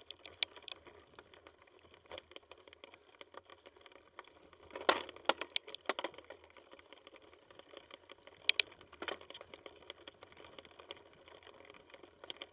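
Mountain bike rattling and clattering as it rides down a rough dirt trail, with a run of sharp knocks from bumps and roots. The loudest jolts come about five seconds in and again near nine seconds.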